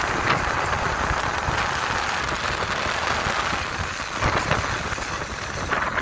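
Peugeot 103 moped's 50 cc two-stroke engine running under way over rough ground, fitted with a small Conti exhaust that runs very quietly, mixed with wind rushing over the microphone. There are louder swells about four seconds in and again at the end.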